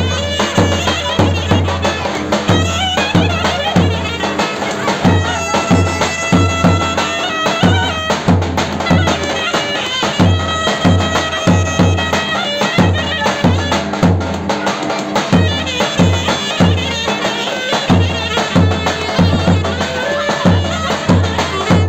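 Clarinet playing a lively folk melody over the regular deep beats of a davul bass drum struck with a wooden mallet.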